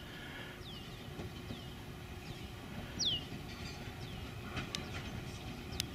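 Electric interurban railcar rolling along the track toward the listener, a steady low rumble with a few sharp clicks near the end. High falling chirps repeat about twice a second over it, the loudest about three seconds in.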